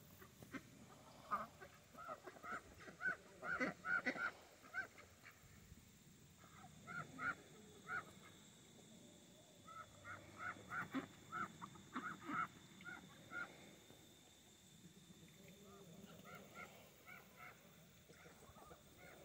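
Domestic ducks quacking in several bouts of short, quick calls, a few a second, with short pauses between bouts.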